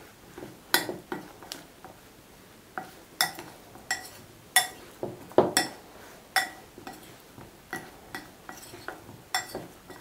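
Metal spoon stirring sliced green tomatoes in starch in a glass bowl, clinking against the glass: irregular sharp clinks with a brief ring, every second or so.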